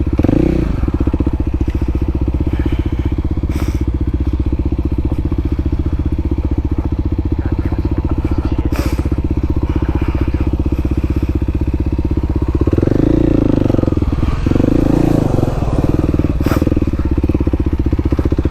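Kawasaki KLX300SM's single-cylinder four-stroke engine running steadily while riding, growing louder from about twelve seconds in, with a few brief sharp clicks.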